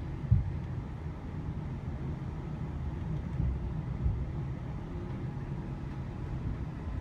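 Low, steady rumble of a tram running slowly along a street, heard from inside the car, with two short low thumps, one just after the start and one about four seconds in.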